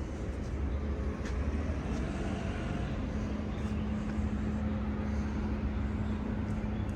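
Road traffic: a steady low rumble of passing vehicles, with a steady engine hum coming in about two and a half seconds in.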